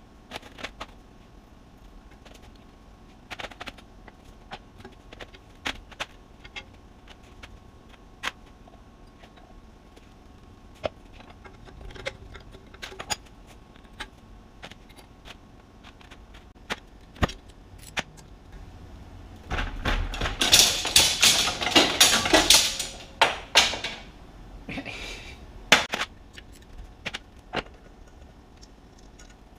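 Metal clinks and knocks of bench grinder parts and hand tools being handled during reassembly. About two-thirds of the way in there is a few seconds of dense rattling and scraping, with a few more clinks after it.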